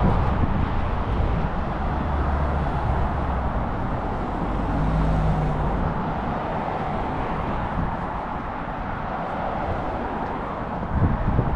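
Steady road traffic noise from cars passing close by, a continuous hiss of tyres over a low rumble.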